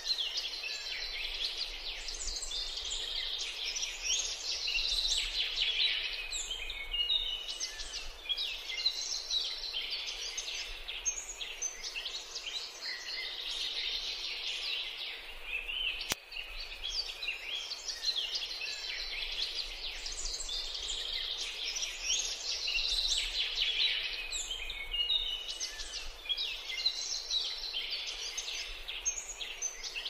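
Dense, rapid high-pitched chirping and twittering of songbirds, many short notes overlapping, with a brief break about halfway before the chatter resumes.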